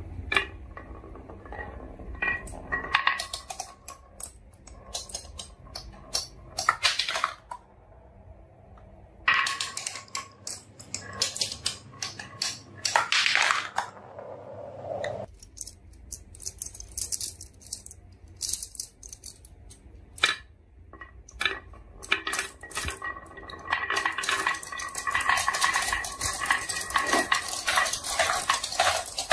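Marbles rolling down a wooden marble run, clicking against the wooden stick deflectors and against each other in bursts of clatter, some dropping into a plastic toy dump truck's bed. Near the end many marbles clatter down together in a dense rattle.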